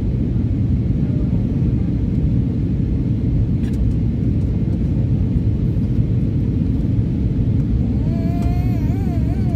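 Steady low roar of an Airbus A320neo's cabin in flight on approach, engine and airflow noise heard from a window seat, with a faint steady hum running through it.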